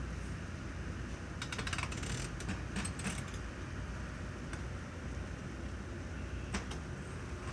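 Steady low rumble of construction-site and road noise, with a short burst of light rattling clicks about a second and a half in and a couple of single clicks later.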